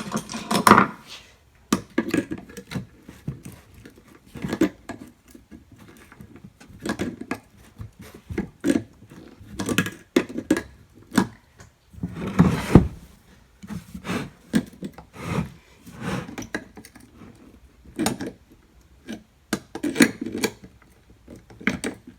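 Pliers working a bent metal speaker frame to flatten a buckle: irregular clicks, taps and scrapes of metal on metal, with one louder knock about twelve seconds in.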